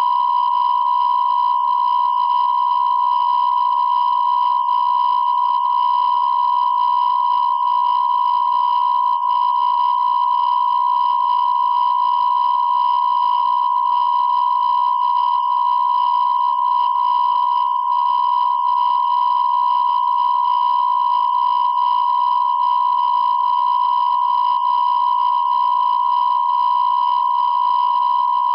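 A steady, high electronic tone held without a break, with fainter higher tones above it.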